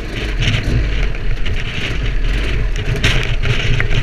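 KTM 200 EXC's single-cylinder two-stroke engine running as the trail bike rides over a rough grass-and-stone track, with uneven surges of wind noise on the microphone.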